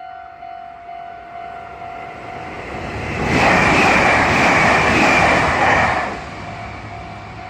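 Japanese railroad crossing bell ringing steadily at about two strikes a second, while a Meitetsu μSKY electric train passes through the crossing: a loud rush of the train swells about three seconds in and falls away about three seconds later.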